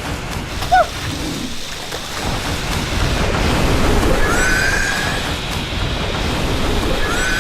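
Waterfall rushing steadily. About a second in comes a brief sharp call, and later there are two short gliding whistle-like tones.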